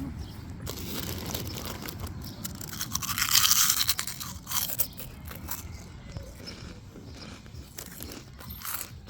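Crunching and crackling of Quavers crisps, with a louder crinkle about three seconds in.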